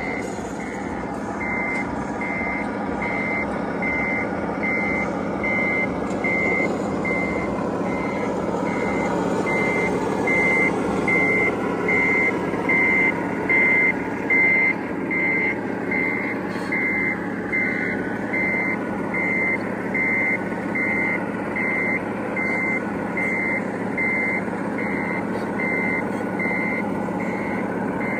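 A truck's reversing alarm beeping steadily, a little over once a second, over a steady engine-like rumble. The beeps get louder for a few seconds in the middle.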